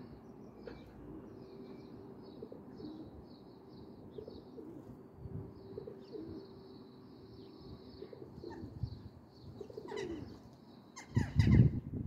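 Small birds chirping steadily over low pigeon cooing, then near the end a loud flurry of wing flaps as birds take off.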